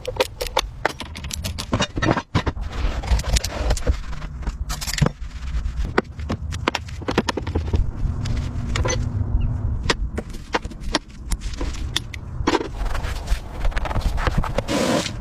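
Scraping with a fast, uneven run of sharp clicks and knocks, as of hand tools at work.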